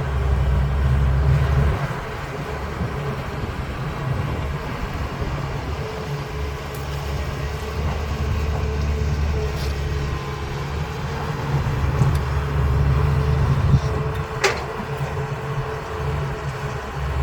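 CAT 320B excavator's diesel engine running under working load, its drone swelling and easing as the machine works. A single sharp knock about 14 seconds in.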